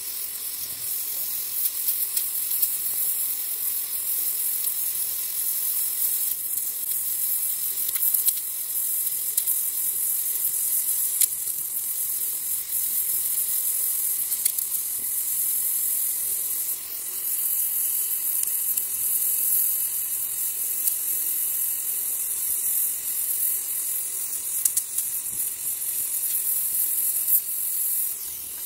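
Gas welding torch flame hissing steadily as aluminium filler rod is melted into the weld, with a few faint crackles.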